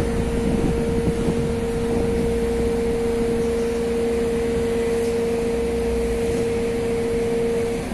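Large crawler crane running: a low engine rumble with a steady high whine over it, which stops near the end.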